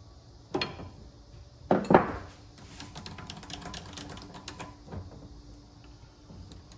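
Metal clatter as a steel tool holder is taken off a lathe's quick-change tool post and handled: a sharp clank about half a second in, two louder clanks around two seconds, then a quick run of small metallic clicks and rattles, and a lighter knock near the end.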